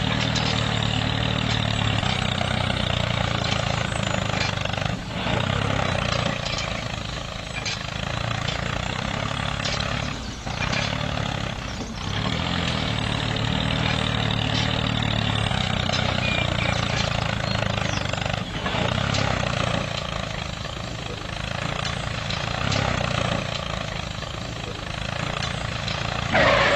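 Mini tractor engine running steadily under load, dipping briefly a few times.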